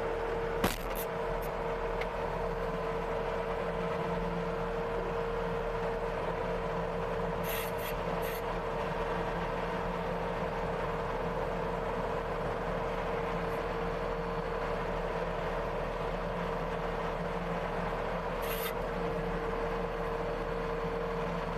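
CASE TR270B skid steer's diesel engine running at a steady speed with a constant whine, with a few short clicks or knocks from the machine now and then.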